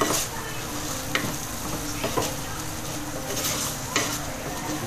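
A wooden spatula scrapes and knocks around a clay pot, stirring a chili masala frying in coconut oil over a low steady sizzle. The strokes come about once a second.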